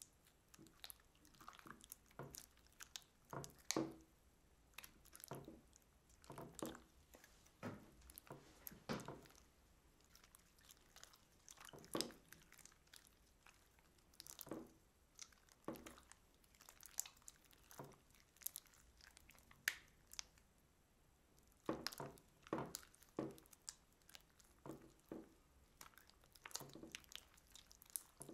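Clear slime thick with glitter being kneaded and squeezed by hand, giving irregular, quiet squelches and small crackling pops.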